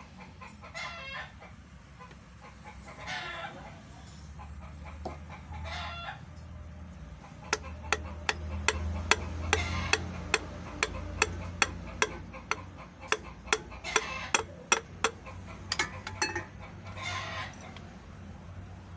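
Chickens clucking and crowing in the background at intervals. Through the middle comes a run of sharp metal taps and clicks, about two a second, from a steel rod and pliers worked against the piston.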